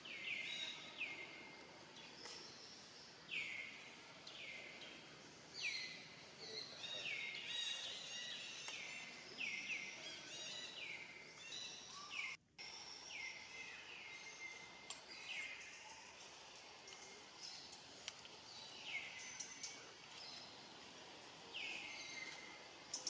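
Forest background with a short, high call that drops sharply in pitch and levels off, repeated about twenty times at uneven intervals, some close together in runs, with a few faint clicks.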